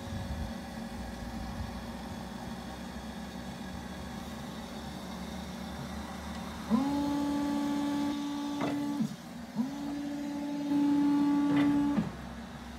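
Linde E15 electric forklift's electric motor whining at a steady pitch twice, each run about two and a half seconds, spinning up quickly and winding down, with a click near the end of each. A steady low hum runs underneath.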